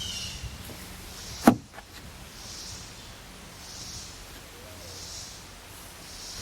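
A single sharp knock about a second and a half in, followed by soft high hissing pulses that repeat roughly every second and a half.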